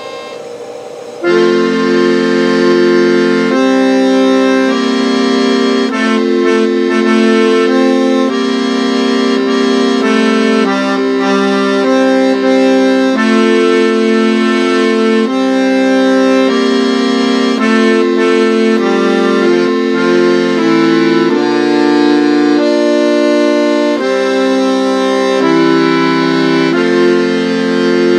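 Chord organ being played: a melody over sustained chords, the notes changing every second or two. It starts about a second in, after a softer opening.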